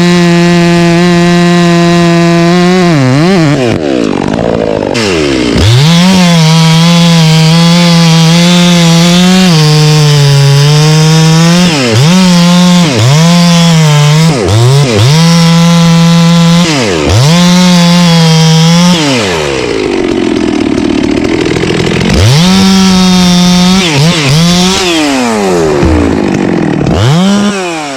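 Stihl two-stroke chainsaw cutting oak at full throttle, its engine note dipping and climbing back several times as the throttle is let off and squeezed again, with one longer drop to a lower pitch a little past the middle.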